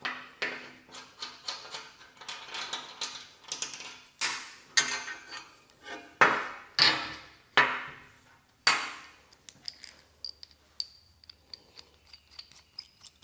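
Steel parts and clamps clanking and knocking as they are set down and positioned on a table, a series of sharp metal knocks with brief ringing. After about nine seconds the knocks give way to lighter, scattered ticks.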